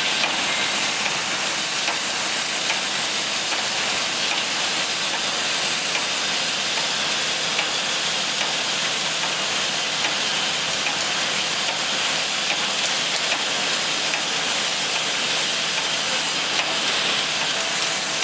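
Envelope window patching machine running at a steady pace, giving an even, high-pitched hiss-like mechanical noise with faint ticks and no change in speed.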